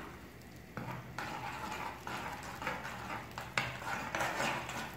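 Spatula stirring and scraping eggs frying in oil in a pan, in several strokes, the first about a second in and a sharper one past the middle.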